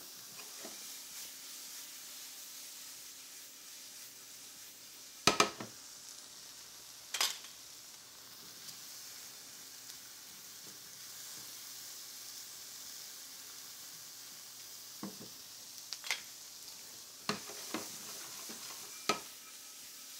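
Mushrooms sizzling steadily in a hot sauté pan as they caramelise while being stirred. Sharp knocks of the utensil against the pan break in now and then, loudest about five and seven seconds in and several more near the end.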